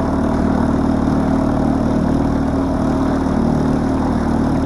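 An engine running steadily at an even speed, a constant low hum with no revving.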